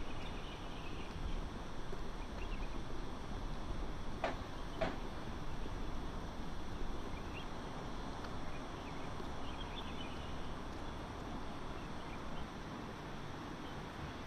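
Steady outdoor city ambience: a low rumble of distant traffic, with faint bird chirps and two sharp knocks close together about four seconds in.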